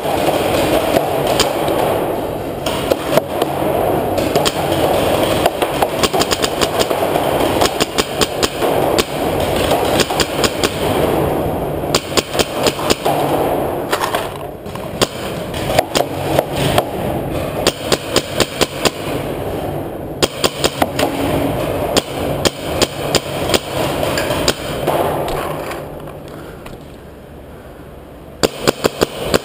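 Paintball markers firing in an underground cave: sharp pops, many in fast strings of several shots a second. It goes quieter for a couple of seconds near the end before another quick string.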